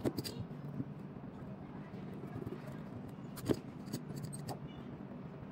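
Light clicks and taps from handling a replacement phone battery on a work mat, its adhesive strips pressed down with a rubber hand roller; one sharper tick about three and a half seconds in.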